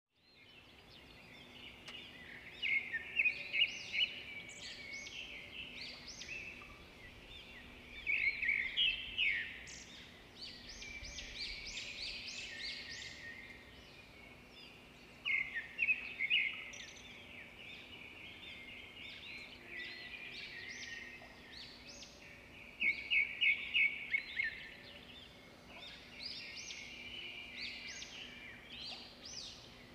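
Woodland songbirds singing, with bursts of quick high chirps and trills every few seconds, over a faint steady low hum.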